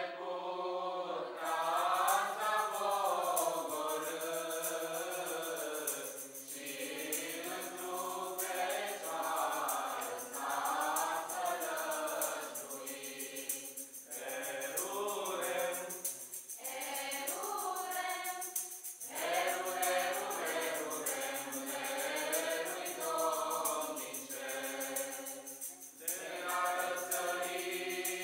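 A small mixed choir of young men's and women's voices singing a Romanian Christmas carol (colind) together, unaccompanied, in phrases of a few seconds with short breaks for breath between them.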